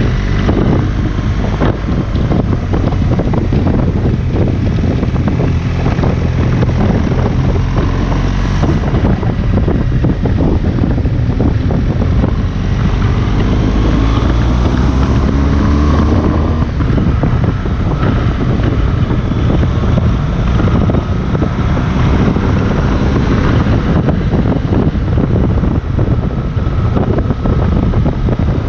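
2018 BMW R 1200 GS's boxer-twin engine running under way, its pitch rising and falling a few times with the throttle, heard through heavy wind noise on the microphone.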